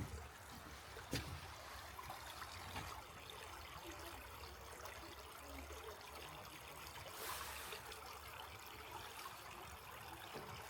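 Faint, steady trickle of a stream flowing over rocks, with one footstep about a second in.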